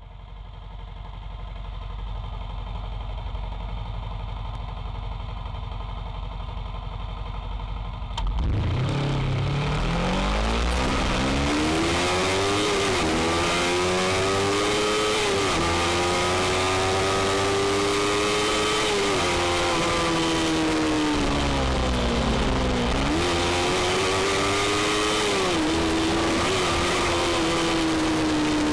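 Yamaha 250 cc motorcycle engine heard from a camera mounted on the bike. A steady hum fades in first. About eight seconds in it turns louder, with wind rush, as the engine revs up and drops back at a series of upshifts, eases off once, then climbs again and settles to a steady cruise.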